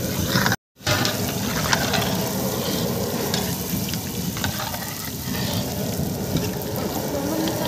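Bread cubes freshly dropped into hot oil deep-frying in a large aluminium pot: a steady, dense sizzle full of small crackles. It is broken by a brief moment of silence just under a second in.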